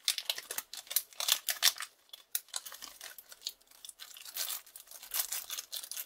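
Metallised anti-static shielding bag crinkling and crackling in the hands as it is opened, with a rapid, irregular run of sharp crackles that thins out in the middle and picks up again near the end.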